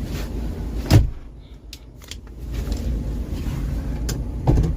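Converted shuttle bus driving over a rough trail: a low rumble with a loud knock about a second in and another near the end, easing off for a moment after the first.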